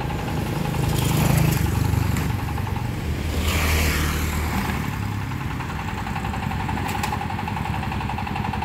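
Motorcycles passing close by, loudest about one second and four seconds in, over a steady engine hum.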